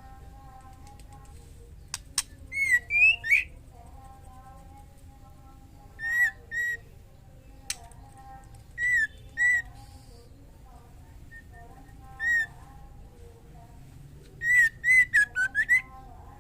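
Female white-rumped shama calling a male with short, hooked whistled notes, mostly in pairs a few seconds apart, then a quicker run of notes near the end. It is a breeding female's call. Two sharp clicks sound between the calls.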